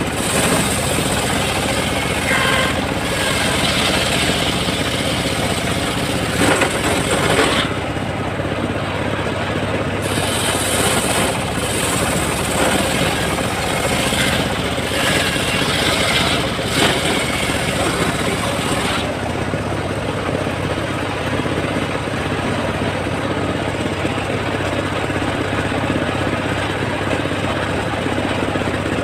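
Homemade circular saw bench cutting a teak log, over the steady running of the motor that drives it. The cutting comes in two passes: the first ends about seven seconds in, and the second runs from about ten to nineteen seconds in. After that the blade spins free and only the motor's steady hum is left.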